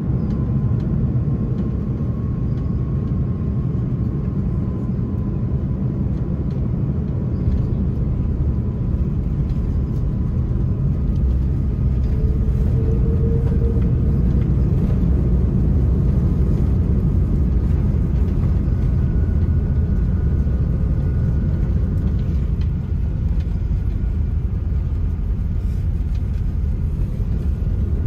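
Steady low cabin rumble of an Airbus A330-300 with Rolls-Royce Trent 700 engines rolling along the ground after landing, engine and wheel noise heard from inside the cabin.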